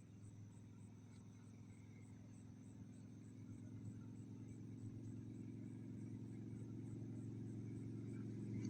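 A motor vehicle's engine hum growing steadily louder as it approaches. A faint, even high ticking runs about three times a second.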